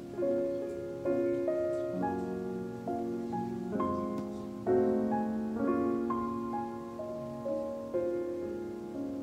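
Background music: a gentle piano plays slow chords and a melody, with a new note struck about every half second.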